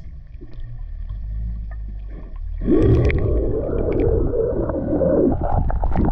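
Muffled underwater sound picked up by a submerged camera: a low rumble with a faint steady hum, then, about two and a half seconds in, a sudden louder rush of water moving over the camera, with a few splashy clicks near the end.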